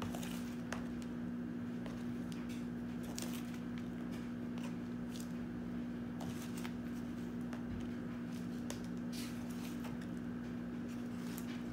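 Potting soil being scooped with a plastic spoon and dropped into a small plastic plant pot: soft, scattered scraping and rustling. A steady low hum runs underneath.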